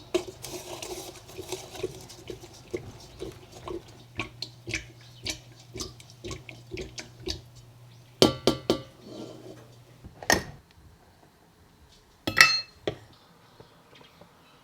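Kitchen utensils and bowls being handled: a run of light taps and clinks over a low steady hum, then louder clattering knocks of dishware, the last one ringing.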